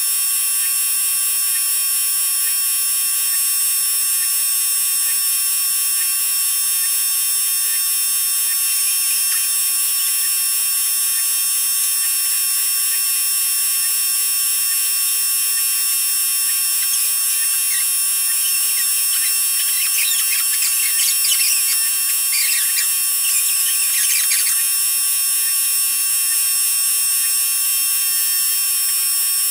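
A steady, high-pitched electric buzz made of many even tones, like a small motor running, holding level throughout. A scatter of short, faint crackles and squeaks rides over it between about 17 and 24 seconds in.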